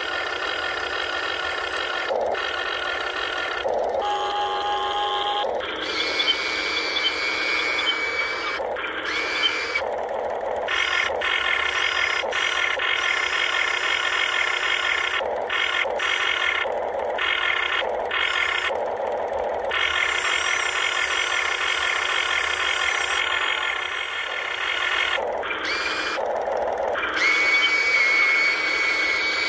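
Amewi radio-controlled excavator's electric motors and gearboxes whining as the boom, arm, bucket and tracks move, in short runs that start and stop every second or two.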